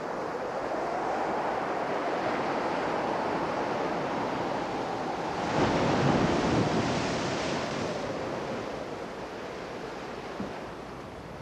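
Stormy sea: heavy surf breaking and churning, with wind on the microphone. A big wave crash swells up about halfway through and slowly dies away.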